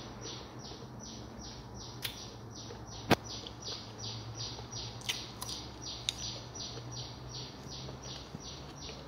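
A bird chirping over and over, short falling chirps at about three a second, over a steady low hum. A few sharp clicks are heard; the loudest comes about three seconds in.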